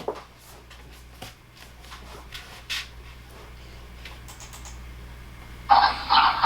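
A dog lapping water, played back as a sound clip: a rapid rhythmic run of wet laps, about four or five a second, starting near the end. Before it come a few faint scattered clicks.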